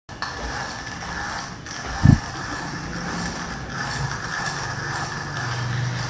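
Small hand coffee grinder being twisted by hand, a continuous grinding, ratcheting rattle, with one knock about two seconds in.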